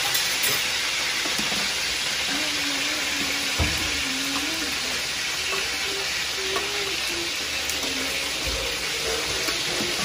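Pieces of boiled adobo chicken frying in hot cooking oil in a wok: a steady sizzle, with a soft thump about three and a half seconds in.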